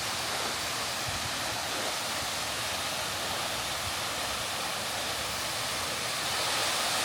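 Munising Falls, a waterfall close by, making a steady hiss of falling water. It grows a little louder near the end.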